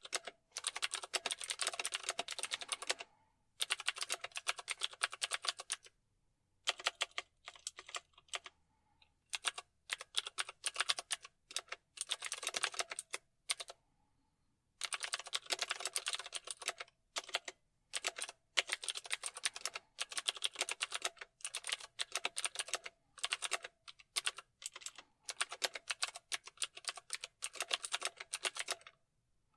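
Typing on a computer keyboard: rapid runs of keystroke clicks in bursts of a second or two, broken by short pauses, with the longest pause about halfway through.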